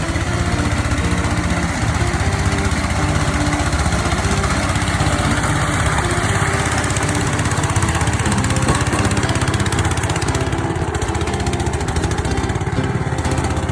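Small engine of a kura-kura besi paddy-field plough running steadily at working speed, a continuous loud engine chug.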